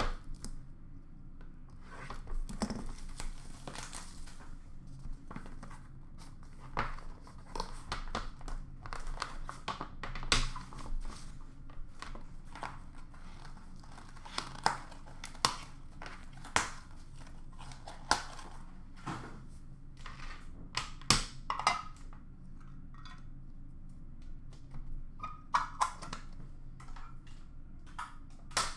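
A sealed box of hockey cards being unwrapped and opened: packaging crinkling and tearing, with irregular sharp clicks and taps from the cardboard being handled.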